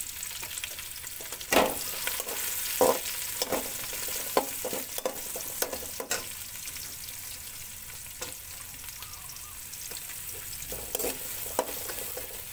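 Sliced onions and golden-brown garlic sizzling in hot oil in an aluminium pot, sautéing. A metal ladle stirs them, clinking and knocking irregularly against the pot, loudest in the first few seconds.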